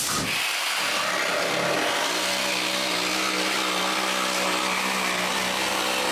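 A machine motor running at a steady pitch, with a steady hum settling in about two seconds in after a noisier start.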